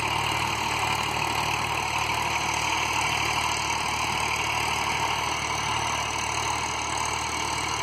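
Diesel tractor engine running steadily at an even speed.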